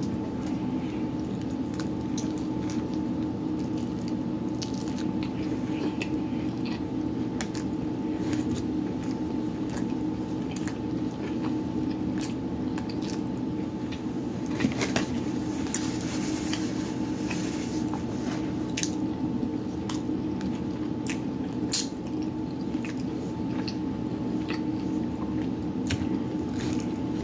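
Close-up eating sounds: chewing and biting into a soft flour-tortilla falafel taco with tzatziki, with many short wet clicks and smacks. A steady low hum runs underneath.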